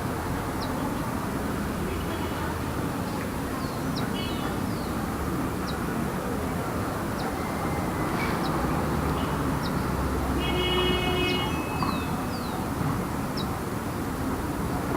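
Light city traffic: a steady rush of car engines and tyres passing on the road, with short high chirps about once a second and a brief higher tone twice.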